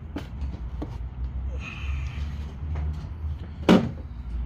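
A few light clicks and one sharp knock about three and a half seconds in, from the oil filter cap and cartridge being handled as they come out, over a steady low hum.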